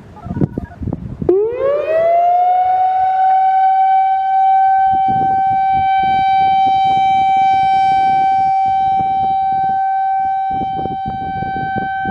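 Whelen WPS-4004 electronic outdoor warning siren sounding its steady alert signal: about a second in, the tone sweeps up over roughly two seconds, then holds one steady high tone.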